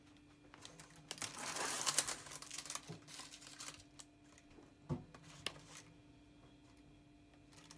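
Clear plastic raspberry punnet being opened and handled, its thin plastic crinkling for a couple of seconds, then two light clicks as berries are picked out.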